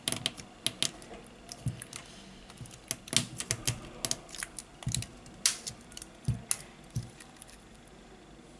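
Plastic frame of a Samsung Galaxy A70 being pressed together by hand, its clips snapping into place: an irregular run of short, sharp clicks that thins out after about seven seconds.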